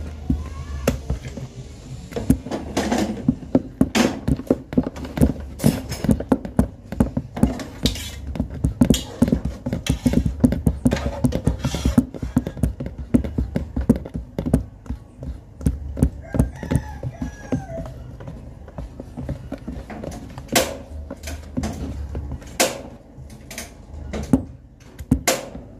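A spoon knocking and scraping against a mixing bowl as chocolate cake batter is stirred by hand: irregular clinks and thunks, a few a second, with pauses.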